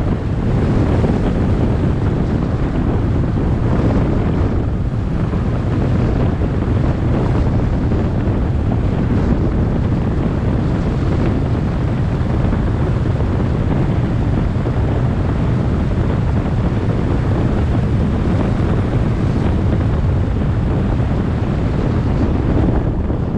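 Steady low rumble of wind and road noise from a car driving at speed.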